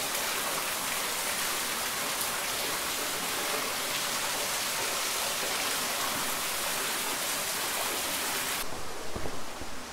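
Waterfall rushing at close range, a dense, even noise loud enough to drown out voices. About a second before the end it drops to a quieter rush with a few low knocks.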